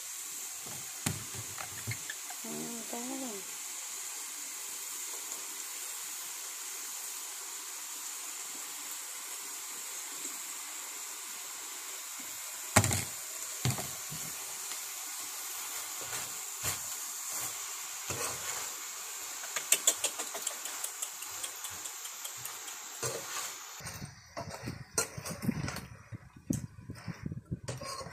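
Food sizzling in a frying pan on a portable gas stove: a steady hiss, with the occasional knock of a metal spatula against the pan. The sizzle stops about four-fifths of the way through, leaving scattered clicks and knocks.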